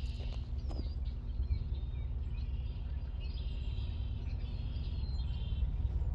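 Songbirds chirping and singing in short phrases over a steady low rumble, which grows slightly louder near the end.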